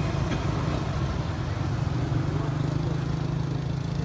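A motor vehicle's engine idling with a steady low drone.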